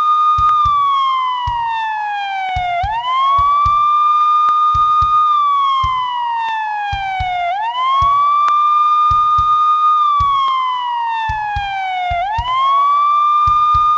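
Police siren sounding a slow wail: the pitch sweeps quickly up, holds for about two seconds, then glides slowly down before rising again, about three cycles in all. Short low thuds sound faintly underneath.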